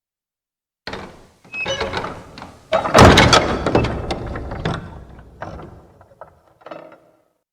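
Heavy old wooden castle door being shut and locked: a run of rattles and knocks, a loud thud about three seconds in that rings on for a second or two, then a few sharp latch clicks.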